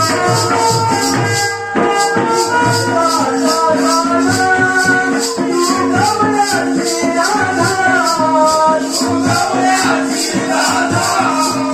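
A live song: a man singing a winding melody over a held drone note, with a steady high rattling beat of about three strokes a second.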